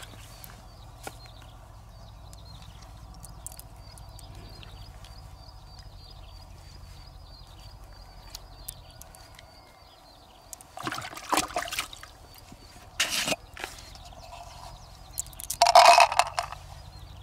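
Wet squelching and small clicks as pearls are picked out of the soft flesh of an opened freshwater mussel. This is followed by a few louder bursts of handling noise in the last several seconds, the loudest near the end as the pearls are put into a small plastic container.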